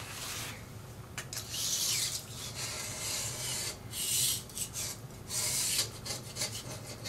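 Hand blade scraper scraping old sealant off the top mating surface of a Storebro Bruk lathe's gearbox housing. It is a run of irregular rasping strokes, some long and some short.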